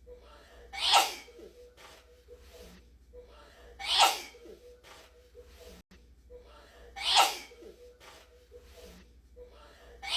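A person sneezing in a looped edit, so the same sharp sneeze repeats about every three seconds: three sneezes, with a fourth starting right at the end.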